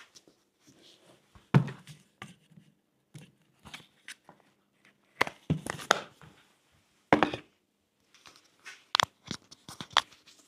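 Handling noise of a clip-on wireless microphone being fitted to the collar of a protective coverall: irregular sharp knocks and clicks, with rustling of the suit fabric against the mic.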